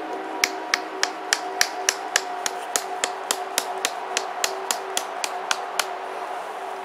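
A tent stake being driven into the ground with the back of a hatchet: a quick, even run of about twenty light taps, roughly three and a half a second, stopping about a second before the end. Faint background music runs underneath.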